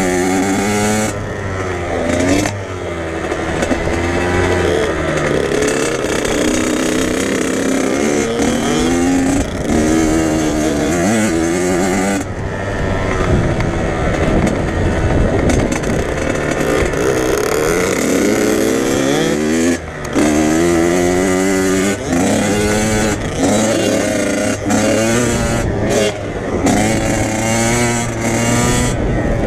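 Dirt bike engine on a motocross track, revving hard and easing off over and over as the throttle is worked. The pitch climbs and drops every second or two, with a brief cut about two-thirds of the way through.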